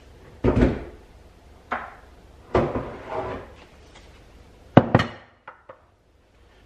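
Kitchen clatter: a string of separate knocks and clunks from dishes and utensils being handled, with the loudest pair about five seconds in and a few small ticks after.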